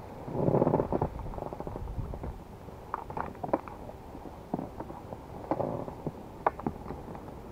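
Handling noise on an inflatable boat's rubber tube: a loud rub about half a second in, then scattered light knocks and clicks in two clusters, over a steady low rumble.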